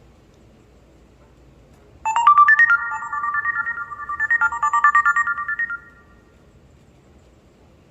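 A built-in HTC Desire 530 ringtone: a short, fast melody of bright, quickly struck notes. It starts about two seconds in and stops a little before six seconds.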